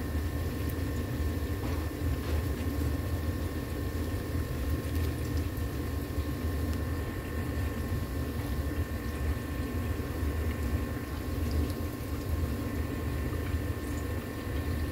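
Steady low hum and rushing noise of a running machine, with a faint high whine over it.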